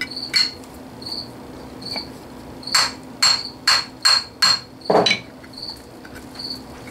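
Scrap brass rod tapping on the steel scroll of a three-jaw lathe chuck, working the scroll loose from the chuck body. One tap comes early, then a quick run of about five sharp metallic taps roughly half a second apart, ending in a duller, heavier knock.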